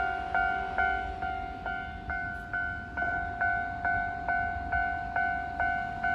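Japanese electronic level-crossing alarm bell ringing its two-tone 'kan-kan' strokes at an even pace, a little over two a second, which signals that a train is approaching the crossing. A low rumble sits beneath it.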